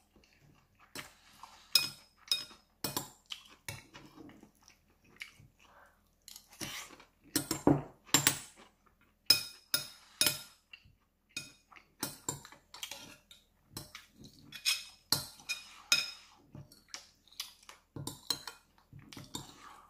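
Metal spoon clinking and scraping against a ceramic bowl in sharp, irregular clinks as it scoops up the last of the rice and onions from a nearly empty bowl.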